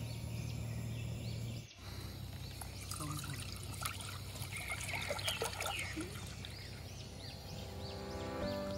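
Water poured in a steady stream from a plastic gallon jug into a cooking pot, splashing and gurgling as the pot fills.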